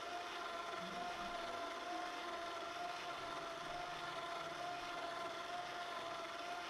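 Power-drill motor and gearbox driving a DIY ventilator mechanism, running with a steady whine that wavers slightly in pitch.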